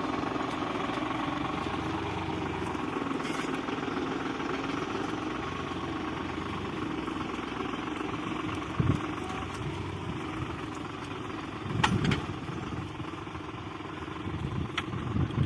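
New Holland 55-56 tractor's diesel engine running steadily while pulling a plough. Two short knocks sound in the second half, about three seconds apart.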